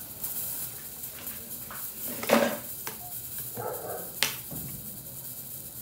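A few scattered clinks and knocks of kitchenware being handled, the loudest about two seconds in and a sharp one about four seconds in.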